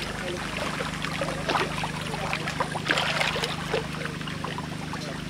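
Dense mass of catfish thrashing and splashing in shallow muddy water, many irregular wet slaps and splashes with a couple of bigger ones, over a steady low motor hum.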